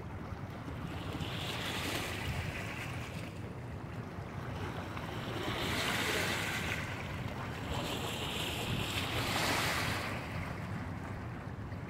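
Water splashing and washing over the rocks at the river's edge in three surges, with wind rumbling on the microphone.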